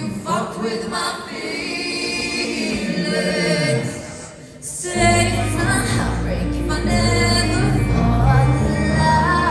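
Live rock band with a female lead vocal and sung harmonies. The first half is thinner and quieter; just before five seconds in it drops briefly, then the full band comes in with a strong bass.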